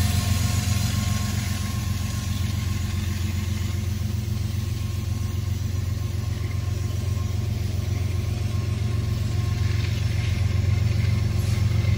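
Diesel freight locomotives running with a steady low engine rumble and hum.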